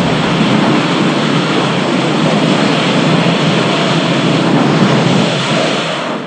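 MechaGodzilla sound effect: a loud, steady, rough mechanical noise with no clear pitch, easing off near the end.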